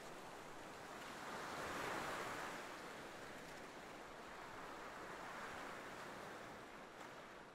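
Faint rushing of distant sea surf with wind, swelling gently twice.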